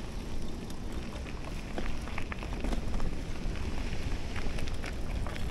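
Riding noise from a moving bicycle: wind buffeting the microphone over a steady low rumble, with scattered small clicks and rattles.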